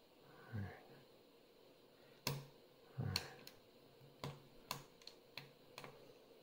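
Lock pick working the pins of a five-pin Lockwood euro cylinder: faint, sharp metallic clicks and ticks, about a dozen at irregular intervals, as the pins are probed and nudged up while the plug is under tension.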